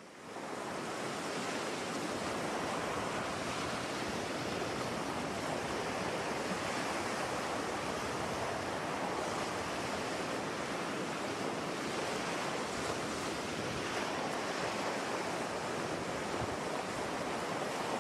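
Steady, even rushing noise that fades in over the first second and then holds level.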